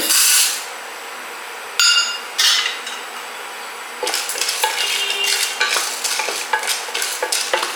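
Peanuts and chana dal drop into a hot pan with a brief rattle, twice. From about halfway through, a spatula stirs and scrapes them as they roast, making quick, dense clicking.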